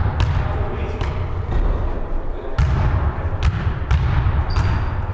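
Basketball bouncing on a wooden sports-hall floor, with irregular knocks from the ball and players' shoes, and a short sneaker squeak near the end.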